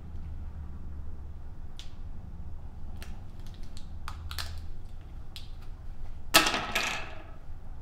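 Light clicks and taps of a small object being handled, then two louder rasping scrapes about six seconds in, over a low steady hum.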